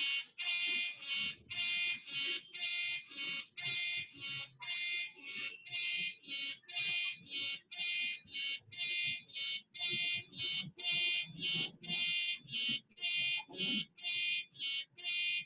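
Alarm tone of an alarm-clock app going off: rapid, evenly spaced electronic beeps, a little over two a second, meaning the set alarm time has been reached.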